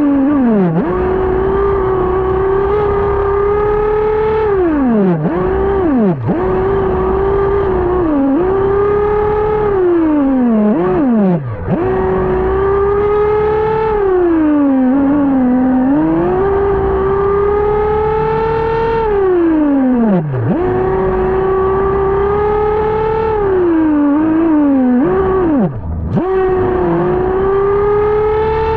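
Nitro glow engine of a Losi RC buggy, heard from a camera on board. It runs at high revs with a steady high whine, and drops sharply several times as the throttle is let off, each time revving straight back up. It is on a break-in tune that has barely been leaned.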